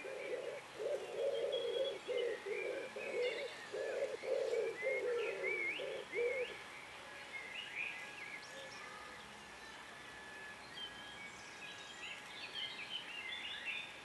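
A dove cooing in a run of low, repeated coos that stops about six and a half seconds in, with small songbirds chirping and whistling over it throughout.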